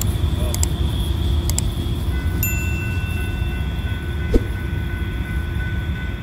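Two clicks, then a bell-like chime that starts about two seconds in and rings on steadily, the sound effect of an animated subscribe-and-notification-bell button, over a low rumble. A single sharp knock comes a little after four seconds in.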